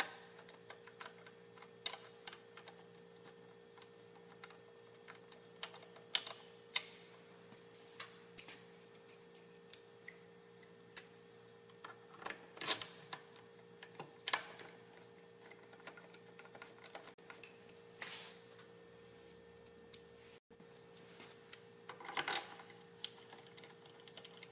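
A hex screwdriver turning screws into a motorcycle clutch pressure plate, with faint, irregular metallic clicks and ticks of the tool and screws and a few short scrapes. A faint steady hum lies underneath.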